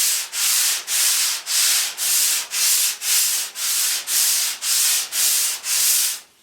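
Sandpaper being rubbed by hand over dried Bondo body filler on a truck fender, in steady back-and-forth strokes about two a second.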